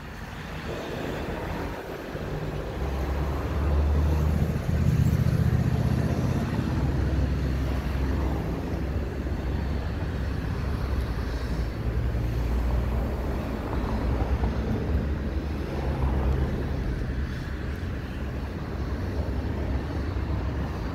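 A train moving through a railway yard: a low engine drone that swells a few seconds in and then holds steady.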